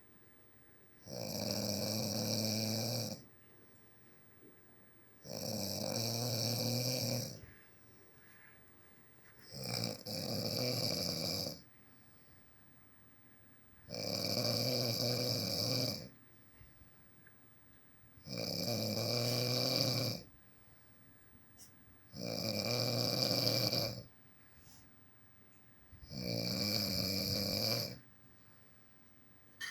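A man snoring in his sleep: seven long snores, each about two seconds, coming roughly every four seconds with quiet breathing gaps between.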